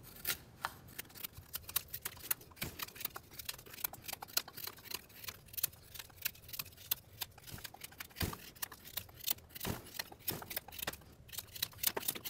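Small fixed-blade neck knife with a saber grind carving a pine stick: a quiet, irregular run of short scraping slicing and pressure cuts as the steel edge bites into the wood, with a couple of louder cuts past the middle.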